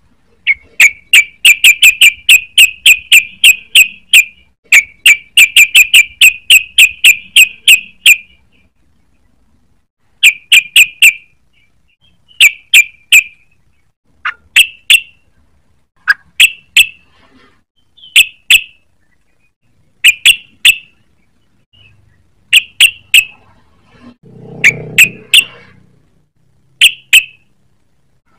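Yellow-vented bulbul (trucukan) calling in fast runs of sharp chirps, about four a second, for the first eight seconds, then in short groups of two to four chirps every couple of seconds. A brief low rumble comes in near the end.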